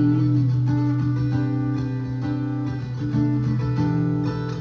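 Instrumental break in a song: guitar picked and strummed over sustained notes, with no singing.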